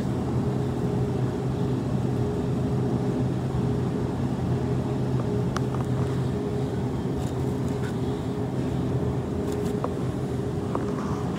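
Steady mechanical hum of a refrigerated supermarket display case, with a few faint ticks.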